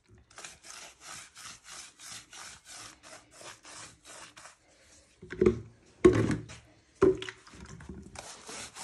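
Brush scrubbing diluted sealant primer onto a rough stone bench surface in quick strokes, about three a second. About halfway through, three louder bumps break in before the brushing picks up again near the end.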